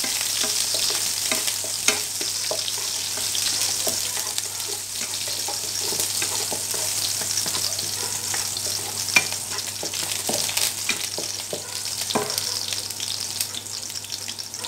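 Chopped garlic and chili sizzling in hot oil in a wok, with a spatula stirring and scraping through it. Two sharp knocks stand out, about two seconds in and about nine seconds in.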